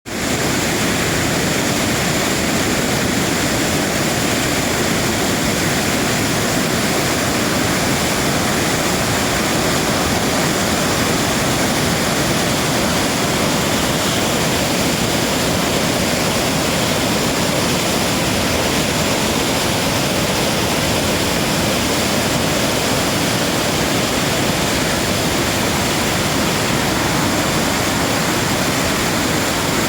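Rushing water, a steady, even rush with no change from start to end.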